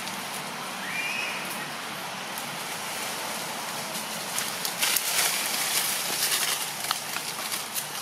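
Dry leaf litter crackling and rustling as macaques move and handle leaves on the forest floor, over a steady hiss. The crackling gets louder and busier from about halfway in. A faint short chirp comes about a second in.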